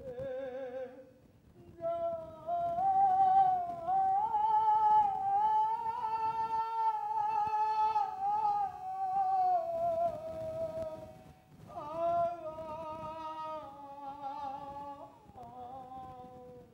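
A single voice singing long held notes without words, wavering in pitch. It climbs over the first few seconds, holds, and slides down about ten seconds in. After a short break it goes on in shorter phrases.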